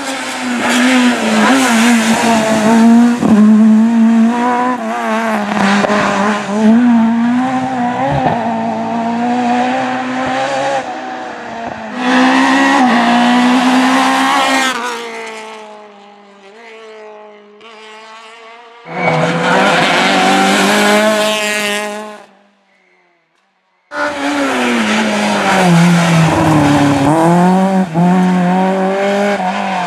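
Rally cars driven flat out past the microphone one after another, engines revving hard, with the pitch climbing and dropping sharply at gear changes and lifts. Each pass starts and stops abruptly, with a brief silence shortly before the last one.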